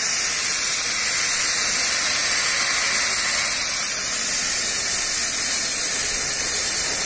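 Pressurised nitrogen hissing out steadily as the leak-test pressure in a car's A/C system is vented through the service machine's valve. This release comes after the test held pressure, ahead of pulling a vacuum.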